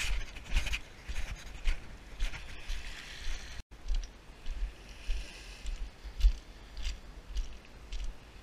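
Footsteps crunching on beach pebbles at a walking pace, close to the microphone, over a steady hiss of wind and water. The sound breaks off for an instant at about a third of the way in, then the steps go on.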